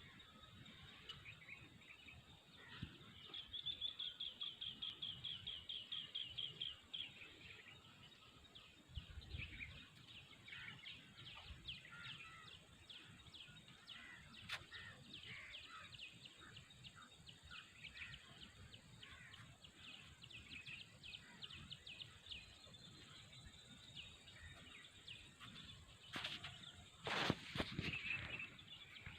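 Several birds calling and chirping in the countryside, including a fast, evenly repeated trill of about five notes a second lasting a few seconds. A louder rush of noise comes near the end.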